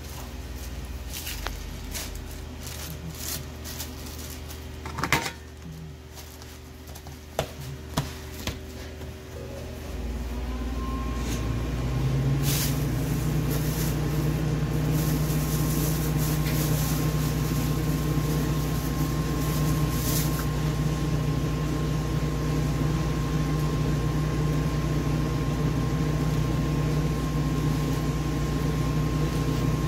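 A few sharp clicks and knocks, then about ten seconds in an electric appliance motor starts up. Its whine rises over about a second and settles into a steady hum and whir.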